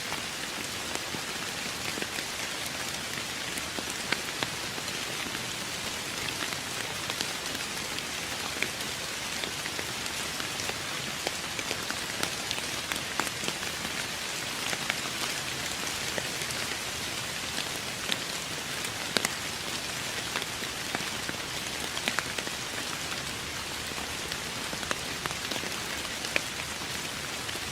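Steady rain falling on a surface, an even hiss dotted with many sharp individual drop hits.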